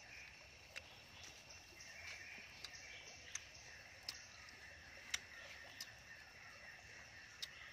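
Quiet with a faint steady high hiss, over which come about eight small sharp clicks, roughly one a second, as cooked field snail shells are handled and picked at with a thin pick.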